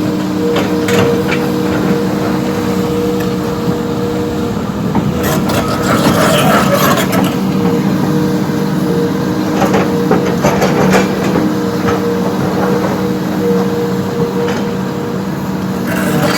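Heavy machinery's diesel engine running steadily, with bursts of knocking and clatter about five to seven seconds in and again near ten seconds.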